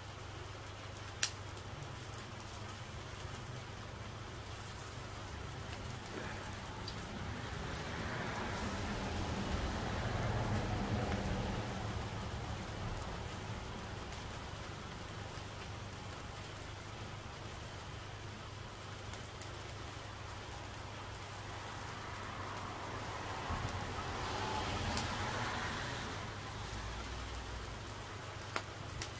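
Steady rain falling, with a low hum underneath. Twice the sound swells up and fades away over a few seconds, and a single sharp click comes about a second in.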